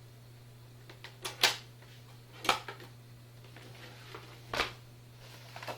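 Several short knocks and clatters of hard equipment being handled and set down, the loudest about a second and a half in, over a steady low hum.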